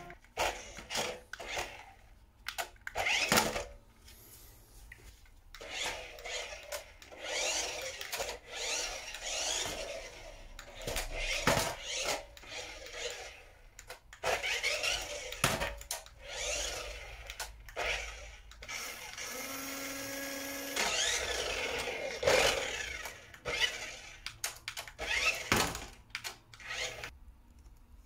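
Small electric drive motor and plastic gearbox of a 1:18 toy remote-control car whirring in short bursts, its pitch rising and falling as it speeds up, slows and reverses, with clicks and knocks between the runs.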